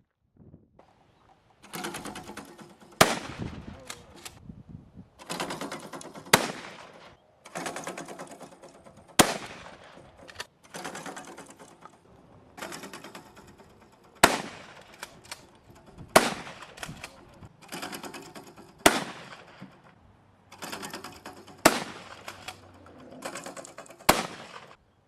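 Gunfire at a shooting range: about eight sharp, loud single shots two to three seconds apart, with stretches of rapid crackling fire between them.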